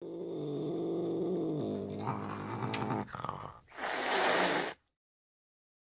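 A cat making a low, drawn-out vocal sound whose pitch drops partway through, then a burst of hissing noise lasting about a second.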